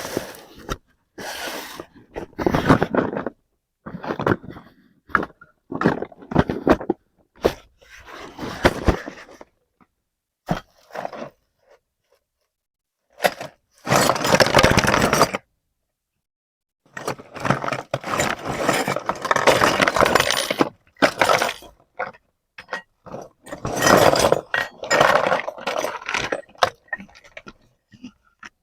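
Unboxing of a plastic toy kitchen set: packaging crinkling and tearing, and small plastic pieces clinking and scraping as they are handled. The sound comes in bursts separated by sudden cuts to silence.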